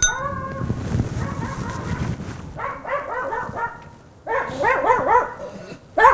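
A dog barking behind the gate in two quick runs of barks, the first about two and a half seconds in and the second about four seconds in, after a low rumble at the start.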